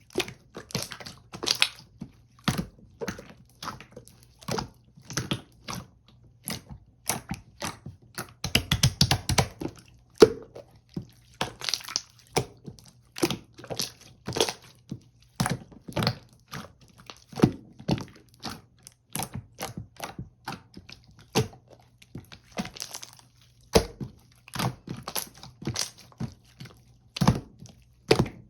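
Pearl marbling slime being pressed, poked and folded by hand, giving irregular short clicks and pops about one or two a second, with a denser crackling run about nine seconds in.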